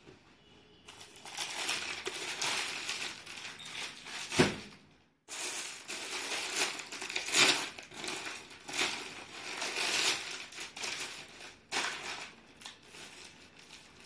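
Crinkling and rustling of folded suit cloth being handled, with a sharp click about four seconds in and a brief break a second later.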